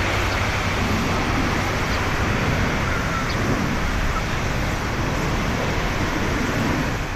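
Rolls-Royce Trent 700 turbofans of an Airbus A330-300 climbing out after takeoff: steady, loud jet engine noise heard from behind the departing aircraft, fading out at the very end.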